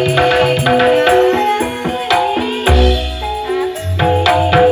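Campursari gamelan music for a Tayuban dance in Banyuwangi gending style. Held metallophone-like notes play over quick hand-drum strokes, with deep low booms about two-thirds of the way in and again near the end.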